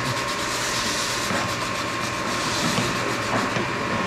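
A machine running steadily, with a fast, even pulsing and a constant thin whine.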